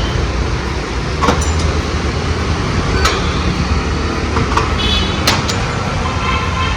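Tyre-shop machinery noise: a steady low hum with a few sharp clicks and knocks, two of them close together about five seconds in.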